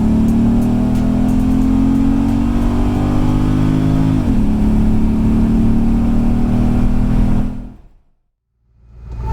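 V8 engine at full throttle, accelerating hard: its pitch climbs slowly, drops with an automatic upshift about four seconds in, then climbs again before the sound fades out near the end.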